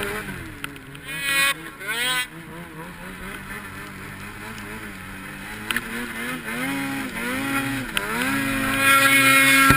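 Snowmobile engine revving up and down as the sled ploughs through deep powder, its pitch climbing late on and held high near the end.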